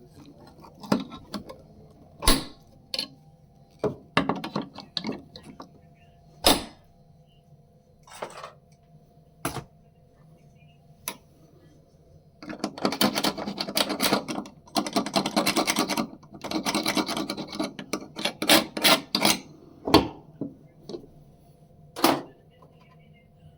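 Hand work on a door hinge: scattered metal clicks and knocks, with a few seconds of steady scraping or rasping in the middle.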